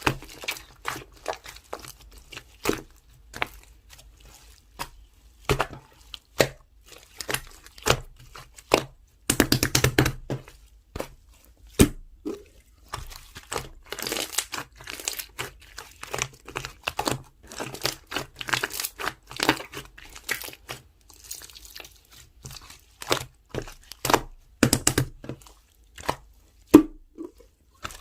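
Green pearl slime being squeezed, stretched and poked by hand, giving irregular clicks, pops and crackly squishes, with a few denser runs of rapid pops.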